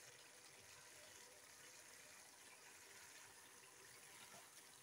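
Near silence: a faint simmer of mutton keema bubbling in its liquid in an open pressure cooker.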